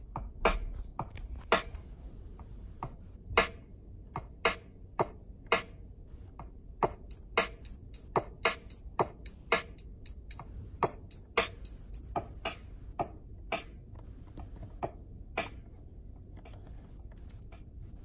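Electronic drum sample hits played from a Pro Tools drum track, struck one at a time at uneven spacing. They come fast for a few seconds around the middle and thin out to a few scattered hits near the end.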